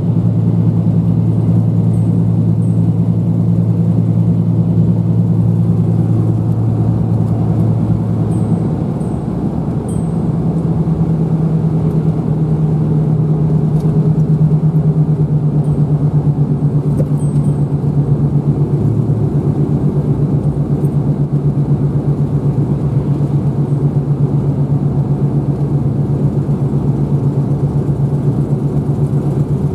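Vehicle engine and road noise, a steady low drone. The pitch drops and changes about nine seconds in, then settles into a steady hum again.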